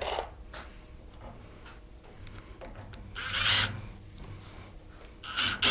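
Screws being picked from a plastic bin and fitted to a cordless impact driver: faint clicks and rattles, with a short burst of noise about three seconds in and another just before the end.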